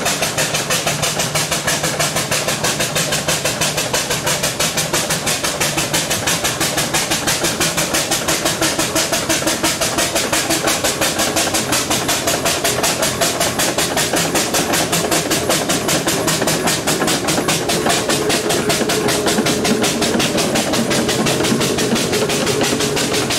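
Fowler steam roller chuffing along under steam, its exhaust beating evenly at about five beats a second. Near the end, the engine of a following Land Rover comes in under the beats.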